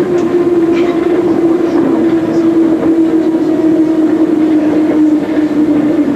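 MI79 RER electric train running, heard from the driver's cab: a steady motor whine that slowly falls in pitch as the train eases off, over the rumble of the wheels, with a few faint clicks from the rails.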